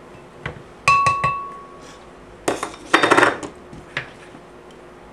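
A spoon knocking against the rim of a glass blender jar to shake off tomato paste. A few sharp clinks; the loudest, about a second in, rings briefly, and a quick cluster of knocks follows about halfway through.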